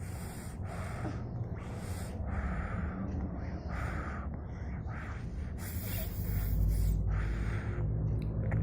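A young child fake-snoring: a run of loud, breathy snort-like breaths about once a second. A low rumble builds under them in the second half.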